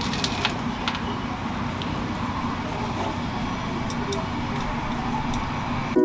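A few faint, scattered clicks of screws and a hand screwdriver as the lock's mounting screws are put in, over a steady low background rumble.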